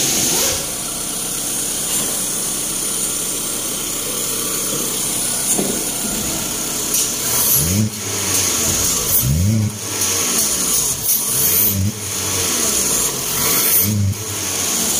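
2009 Toyota Camry's freshly installed replacement engine running steadily, then revved about four times in quick blips, each rising and falling in pitch, roughly every two seconds.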